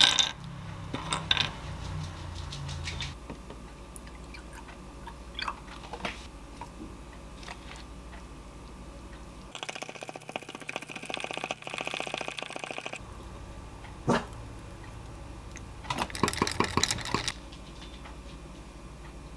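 Small tabletop handling sounds: light clicks of cashew nuts being set onto a ceramic plate at the start, a few seconds of rapid rattling noise around the middle, then a knock and a cluster of clicks as the glass and plate are set down near the end.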